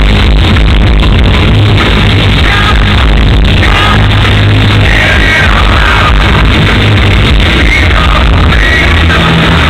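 Live rock band playing loud through a concert PA, heard from among the audience, with a pitched lead line or vocal coming in about halfway through.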